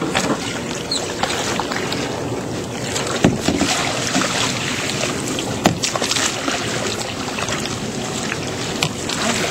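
Canoe being paddled off from a rocky shoreline: a steady rush of wind and water, with paddle strokes splashing and a couple of sharp knocks against the hull, about three and five and a half seconds in.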